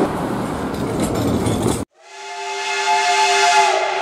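Steam locomotive whistle blowing a steady chord of several tones. It fades up about halfway through and holds to the end, after a hard cut from the rushing noise of street traffic.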